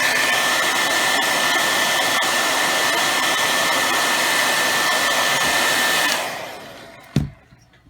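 Handheld hair dryer blowing steadily with a high-pitched whine, switched off about six seconds in and spinning down. A single thump follows near the end.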